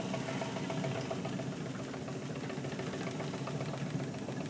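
Steady low hum of a crankshaft balancing machine, with a thin high-pitched whine.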